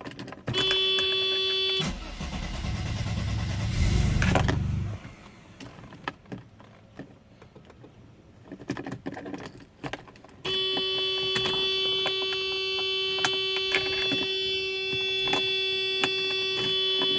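Mercedes-Benz 300E's steady dashboard warning buzzer cuts off as the starter cranks the cold engine for about three seconds without it catching. Then stiff-key clicking, and the buzzer sounds again from about ten seconds in.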